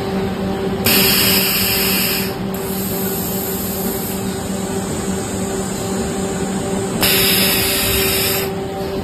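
Toilet paper rewinding machine running with a steady hum, broken twice by loud hisses of compressed air: once about a second in and again about seven seconds in, each lasting about a second and a half.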